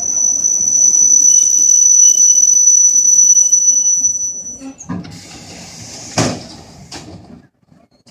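ED4M electric train's brakes squealing in one steady high tone as it draws to a stop, cutting off after about four and a half seconds. Then a hiss of air and a sharp thump as the doors open, with a smaller knock a moment later.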